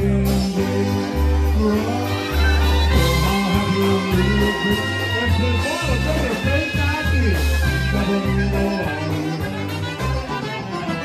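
Live polka band playing: trumpets and saxophone carry the tune over a bouncing bass line and drums.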